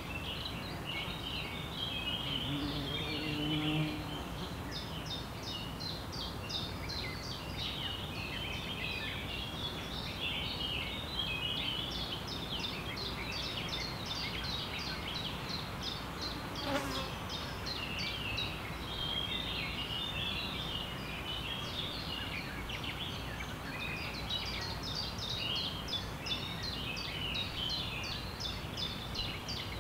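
A forest bird chorus of many quick, high chirps and trills, with an insect buzzing close to the microphone for a couple of seconds near the start. One sharp click about halfway through.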